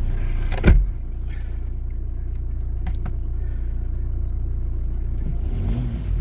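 Audi A6 C6 TDI diesel engine running steadily at idle, now starting after a crank-no-start fault. A single heavy thump sounds about a second in. Near the end the low engine note begins to rise and fall repeatedly.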